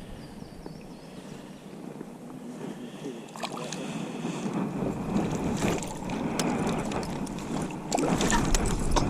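Water splashing and scattered knocks around a small jon boat. The sound grows busier from about halfway through and is loudest near the end.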